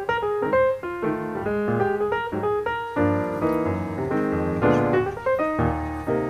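Background piano music: a run of single notes and chords with a steady pulse.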